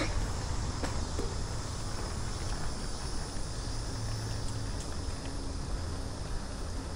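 Steady outdoor ambience: a constant high insect drone over a low, even rumble, with a faint click about a second in.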